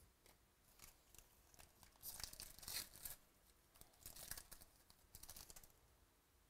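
Trading-card pack wrapper being torn open and crinkled by hand, in three short bursts of rustling about two, four and five seconds in.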